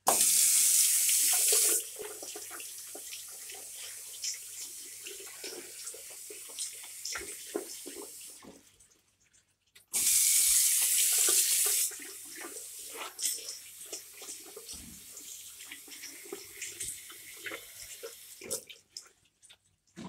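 Water from a washbasin tap running into a ceramic sink, twice. Each run starts suddenly with about two seconds of loud hiss, then goes on quieter with scattered splashes and drips. The first run stops about eight and a half seconds in, and the tap runs again about a second later.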